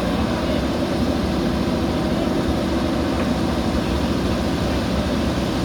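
JCB 3DX backhoe loader's diesel engine running steadily at an even speed.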